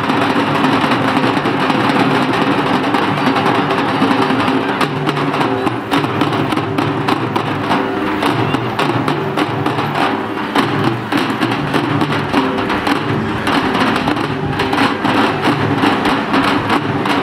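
Loud festival procession music with fast, dense drumming.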